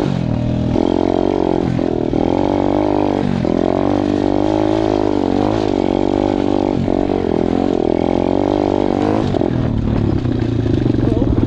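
KXD 125cc pit bike's four-stroke single-cylinder engine under way, revving up and dropping back again and again as the throttle is worked and gears change. Near the end it settles to a steadier, lower note.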